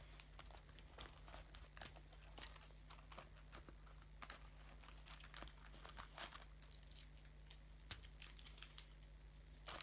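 Faint handling noise: scattered small clicks and rustles of elastic bracelet string and craft materials being handled, over a low steady hum.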